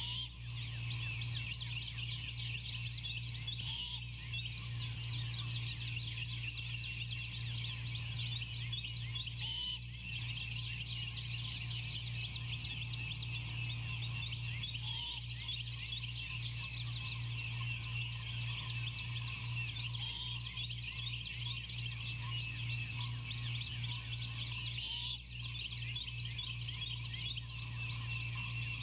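Outdoor animal chorus of many rapid, overlapping chirps and trills, with a few brief whistled notes, over a steady low electrical hum from the nest-cam microphone.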